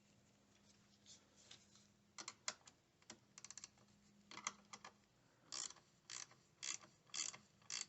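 Socket ratchet clicking as the 10 mm nut on a car battery's positive terminal clamp is tightened. There is a quick run of clicks about three and a half seconds in, then single sharp clicks about twice a second near the end.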